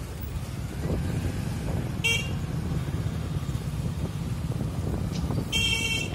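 Busy street traffic: a steady low rumble of engines and road noise, with a vehicle horn giving a short beep about two seconds in and a longer beep near the end.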